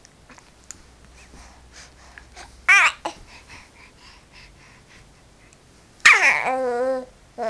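Baby babbling: a short high squeal about three seconds in, then near the end a loud drawn-out wavering "aaah" that opens with a high falling squeal.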